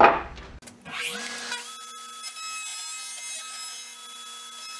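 Router table motor spinning up about a second in, then running with a steady whine as a flush-trim bit trims the edge of a wooden pistol-grip blank along its template.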